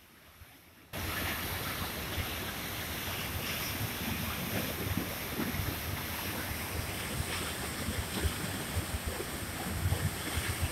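Waterfall of the Bhagirathi river pouring through a narrow rock gorge into a churning pool: a steady rushing roar that cuts in suddenly about a second in, with wind buffeting the microphone in low thumps.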